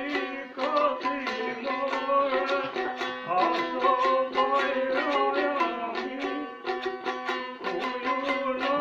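Long-necked folk lute played solo: a quick plucked melody with many notes a second over a steady, unchanging lower drone note.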